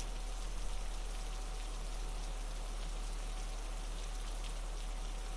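Steady, even rain-like patter of falling water, with a steady deep low tone underneath: the alpha tone laid under the meditation soundtrack.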